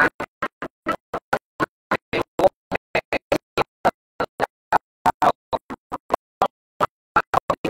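A rhythmic run of short, sharp percussive strokes, about four a second and unevenly spaced, as of ritual percussion being shaken or struck in time.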